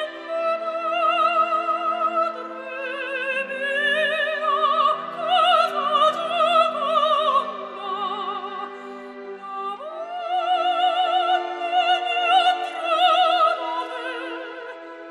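Background music: operatic singing, long high notes with wide vibrato over steady held low accompanying notes.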